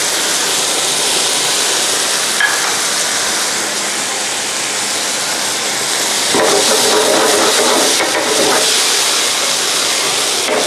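Ground chicken and diced potato sizzling steadily in oil in a nonstick pan, with a single click about two and a half seconds in. About six seconds in, a wooden spatula stirs and scrapes through the mixture for a couple of seconds, louder than the sizzle alone.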